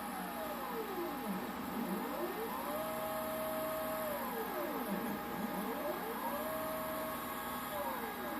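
Stepper motors of a Mostly Printed CNC machine whining as the gantry traces shapes. On each move the pitch rises as the motors speed up, holds steady while they cruise, then falls as they slow to a stop, and a new move starts every three to four seconds. Two or more tones move together, one for each driven axis.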